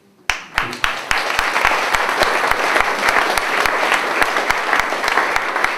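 Audience applauding: many hands start clapping suddenly a moment in and keep up steady applause.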